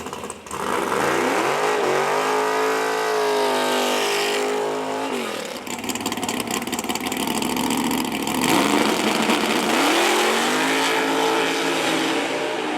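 Race car engine revving: its pitch climbs and holds, drops about five seconds in, then climbs and holds again.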